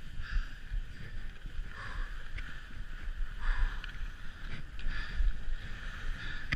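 Skis sliding and carving on groomed snow, heard from a chest-mounted camera: a steady rushing hiss that swells every second or two as the edges scrape through the turns, over a low rumble of wind on the microphone.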